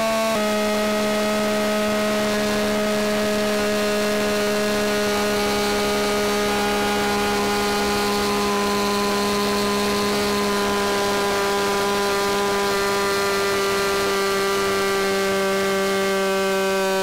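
Stihl 026 two-stroke chainsaw engine with a new, unmodified aftermarket big-bore cylinder running at full throttle against a dyno's load. The engine note is steady, dips slightly just after the start and sinks slowly near the end as the load pulls the revs down.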